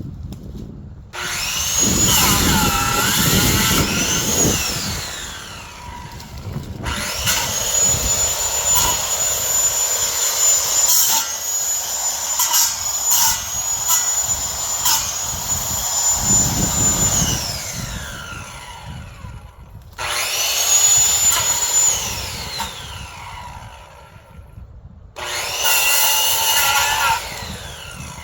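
Power saw cutting branches in four runs. Each time the motor winds up quickly to a steady high whine, holds under load, then winds down when released, with short quiet gaps between.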